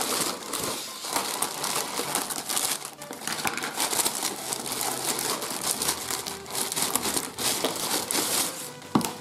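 Plastic shipping packaging crinkling and rustling continuously as a parcel is unwrapped by hand, with one sharp click near the end.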